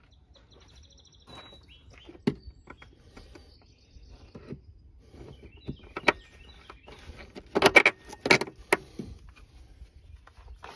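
Scattered knocks and metallic clanks from a rear shock absorber being pushed up and seated in its upper mount under the car. A quick cluster of the loudest knocks comes about two-thirds of the way through.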